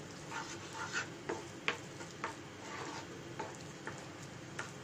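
Spatula stirring and scraping a thick chhana and condensed-milk mixture in a pan on the stove, cooking it down. There are irregular short scrapes and taps over a steady low hiss from the hot pan.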